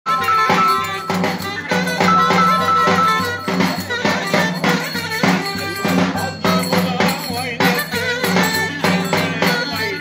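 Live Turkish folk dance music: a davul bass drum struck with a stick in a steady dance beat, under a wind instrument playing a held, ornamented melody.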